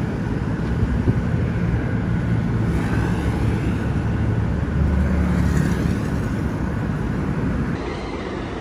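Road traffic: car engines running as vehicles pass, with one pass swelling loudest about five seconds in.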